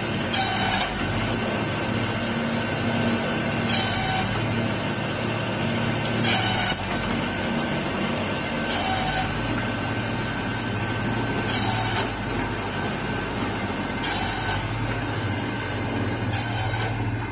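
Bamboo slicing and splitting machine for satay skewers running with a steady motor hum, with a short cutting noise about every two and a half to three seconds as each piece of bamboo goes through the blades, seven times in all.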